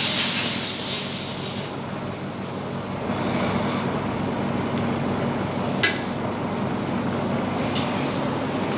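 A steady low mechanical hum with a hiss over the first second and a half or so, and a single sharp click about six seconds in.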